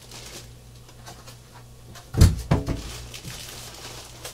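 Plastic wrapping rustling and cardboard packing inserts shifting as a boxed record player is unpacked by hand. About two seconds in there is a sharp knock of handling followed by a short vocal sound from a person.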